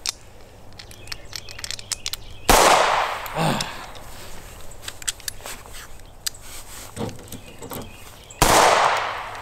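Two pistol shots from a small single-shot pistol, about six seconds apart, each with a trailing echo. Faint clicks of handling and loading come between them.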